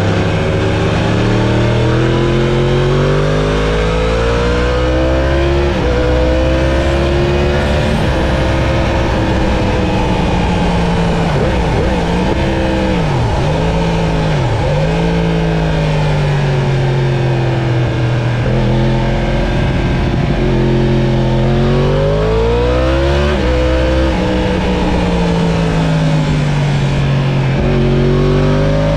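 Sport motorcycle engine heard from on board, its pitch climbing and falling again and again as the throttle opens and closes and the gears change, with steady wind rush over the bike.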